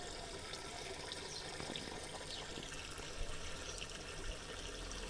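Faint steady outdoor background noise, with scattered short high-pitched ticks and a few faint chirps.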